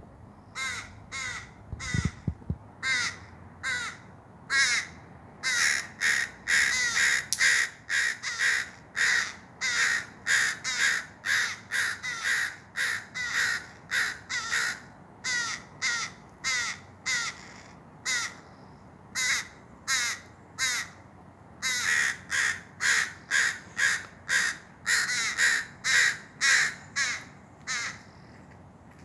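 Crows cawing in long runs of short caws, about two a second, broken by a few pauses of a second or two.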